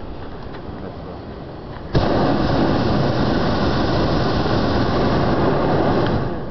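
Hot-air balloon's propane burner firing: a loud, steady rushing blast that starts suddenly about two seconds in and stops near the end, a burn to keep the balloon climbing.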